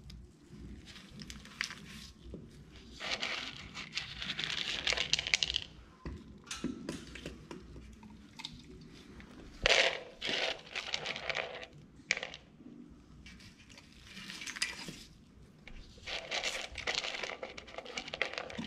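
A Bornean orangutan eating and handling her food close by: several bursts of crunching and rustling with small clicks and knocks between quieter stretches.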